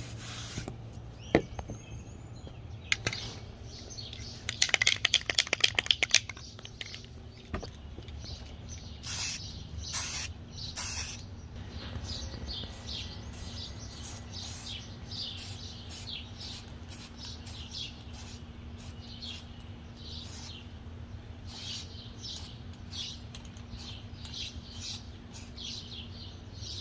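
Aerosol can of spray primer shaken, its mixing ball rattling fast for a few seconds. Then three short hissing spray bursts, followed by a string of brief spray puffs, one or two a second, to the end.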